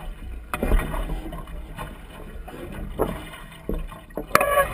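Lake water slapping and splashing irregularly against the hull of a small Sunfish-type sailboat under way, with wind rumbling on the microphone. Near the end there is a brief, louder sound.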